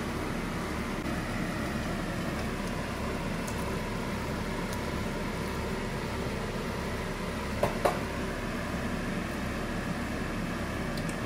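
Steady hum of a kitchen fan running, with two quick clinks against the pan a little past the middle as crumbled tofu is tipped in from a metal bowl.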